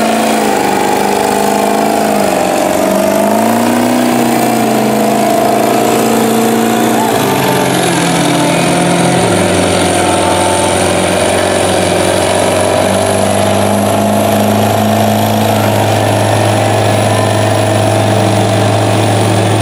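Diesel mud trucks' engines running hard in deep mud, the revs rising and falling for the first several seconds, then dropping about halfway through to a steady, lower drone.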